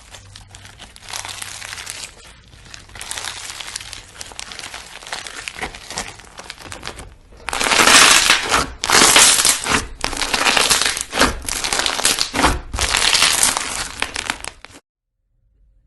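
Slime being squeezed and worked by hand, a dense run of small pops and clicks that gets louder about halfway through and cuts off suddenly near the end.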